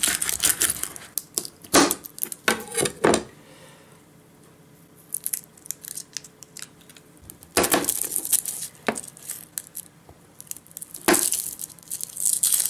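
Garlic cloves being broken from the bulb and peeled by hand, their dry papery skins crackling and tearing in short bursts, with a few sharper knocks of a knife on the cutting board near the end.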